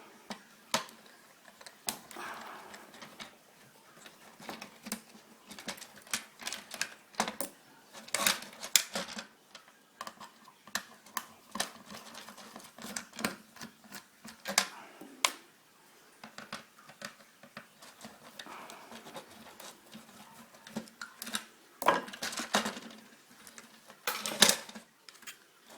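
Irregular clicks, taps and clatter of hand tools and small plastic and metal parts as an old house telephone is taken apart on a table.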